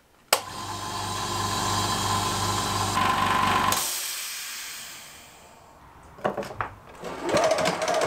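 Small electric tyre inflator motor running steadily for about three seconds, then cutting off suddenly, followed by a fading hiss of air. A few short knocks come near the end.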